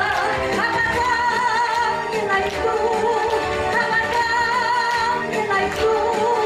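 Pop song playing loudly: a melody line with held, wavering notes over a backing track.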